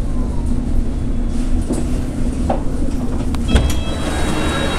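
London Underground train's sliding doors opening about three and a half seconds in, with a clunk and a high steady tone starting together, over the low rumble of the stopped train.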